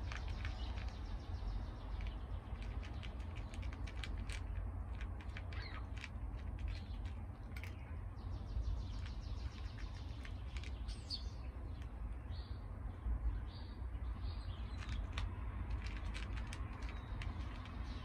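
A cat crunching dry kibble, a run of sharp clicks as it chews. A bird chirps several times in a short series around the middle, over a steady low rumble.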